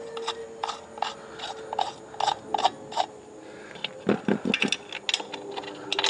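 Light metallic clicks, about two or three a second, as lug bolts are turned by hand into a steel tractor wheel, with a short cluster of duller knocks a little after four seconds.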